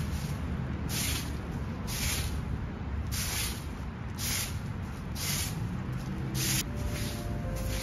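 A long fibre broom sweeping fallen leaves across grass and dirt, one swish about every second. Soft music comes in near the end.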